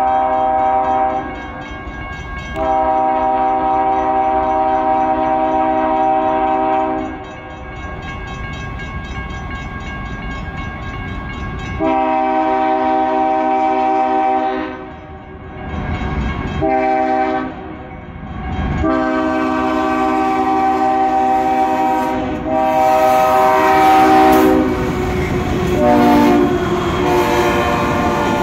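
A CSX ES44DC diesel locomotive's air horn sounds a chord of several notes in the grade-crossing pattern as the train approaches: long blasts, then a short one and another long one. Near the end the locomotive passes close, and the rumble of its engine and the rattle of its wheels on the rails rise under further horn blasts.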